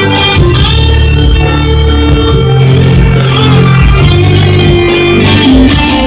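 Live band playing loudly, with electric guitar to the fore over a steady low bass line.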